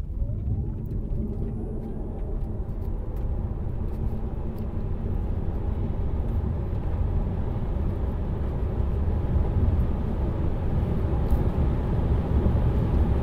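Cabin sound of a 2019 Tesla Model 3 Performance's front and rear electric motors under full-throttle acceleration: a motor whine rising in pitch over the first couple of seconds, then a steady rumble of road and wind noise that slowly grows louder as speed climbs.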